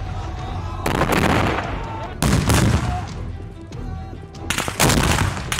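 Gunfire and explosive blasts in a mock assault: three loud bursts, about a second in, just after two seconds, and near the end as a cluster of sharp reports. Music plays underneath.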